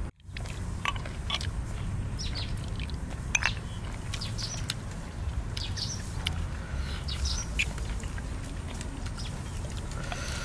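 Scattered short bird chirps over a steady low rumble of open-air background, with a few light sharp clicks as a bamboo stick picks at cooked snail shells.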